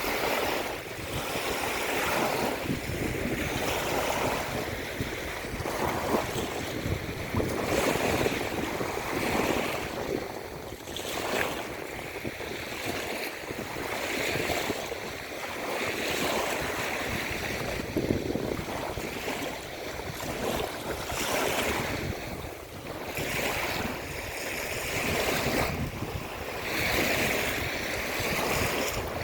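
Waves breaking and washing onto the shore, swelling and easing every few seconds, with wind buffeting the microphone.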